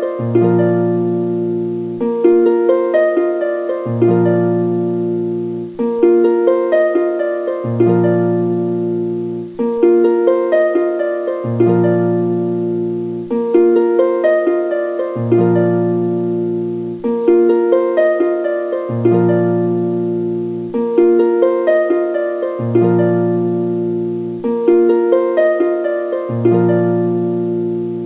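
Background music of plucked-string notes over a low bass line, a short looping phrase that repeats about every four seconds.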